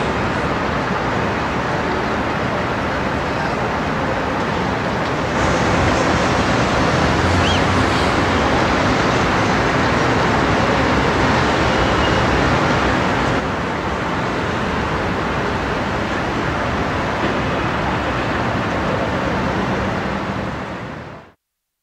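City-centre street ambience: a steady wash of road traffic noise. It steps up in level about five seconds in, drops back around thirteen seconds, and fades out near the end.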